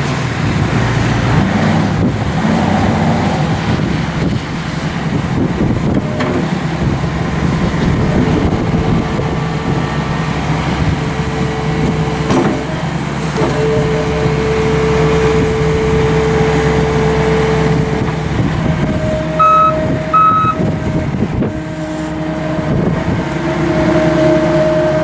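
John Deere 312GR skid steer's four-cylinder turbocharged Yanmar diesel running steadily. A steady tone comes in for several seconds in the middle, and two short beeps sound about twenty seconds in.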